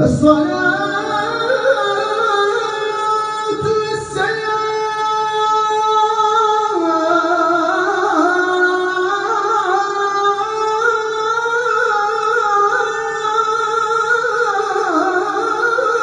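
A man's unaccompanied voice chanting a sela in the Hüseyni maqam into a microphone: one long melismatic phrase of held, ornamented notes that comes in suddenly at the start and steps down lower about six and a half seconds in.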